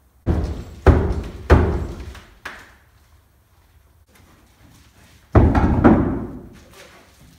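Heavy thuds on a newly hung front door and its frame: four in the first two and a half seconds, then one more about five and a half seconds in, each ringing on briefly.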